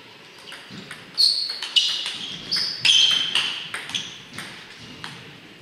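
Table tennis rally: the plastic ball cracks off the rubber bats and bounces on the tabletop. After a few soft ticks, a quick run of sharp hits starts about a second in, each with a short high ring, at roughly two to three hits a second.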